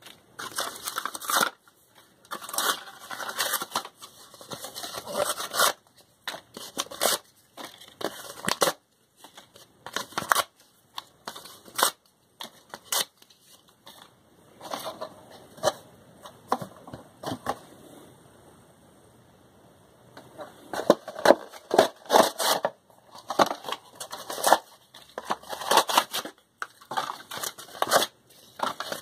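Thin paperboard boxes being ripped and torn apart by hand, in irregular bursts of sharp tearing and crackling, with a short lull about two-thirds of the way through.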